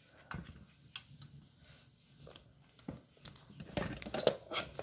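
Scattered light clicks, taps and rustling of hands handling the buggy seat and its small screws, thickest about four seconds in.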